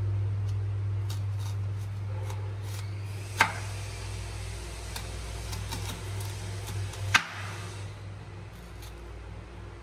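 Chef's knife slicing an onion on a wooden cutting board: faint cuts, with two sharp knocks of the blade on the board a few seconds apart, over a steady low hum.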